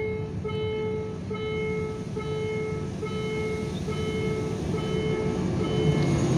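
Railway level-crossing warning bell sounding a repeated ringing tone, a little more than once a second, over the low rumble of an approaching diesel locomotive that grows louder near the end.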